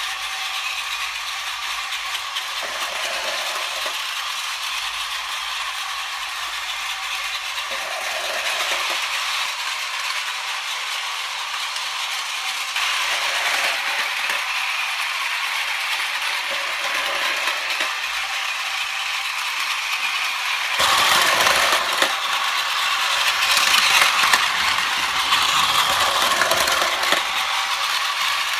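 Battery-powered Plarail toy trains, MTR Airport Express models, running on blue plastic track. There is a steady whirring of the small motors and gearboxes with wheels rattling over the track, growing louder and fuller about three quarters of the way in.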